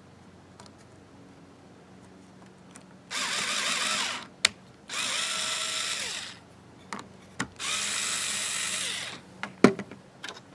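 Power drill running in three short bursts as it pre-drills the screw holes in a hive entrance reducer. Sharp knocks sound between the bursts, and the loudest comes near the end.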